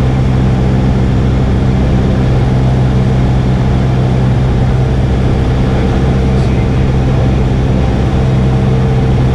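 Cessna 172R's four-cylinder Lycoming engine and propeller running steadily in flight, a constant drone heard from inside the cockpit.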